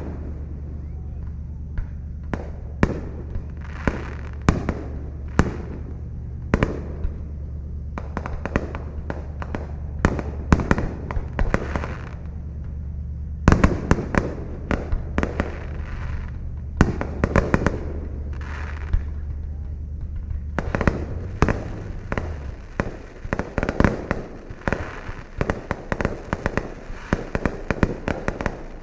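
Fireworks going off: many sharp bangs and pops in quick succession, some trailing off in crackle. Underneath runs a steady low hum that stops about two-thirds of the way through.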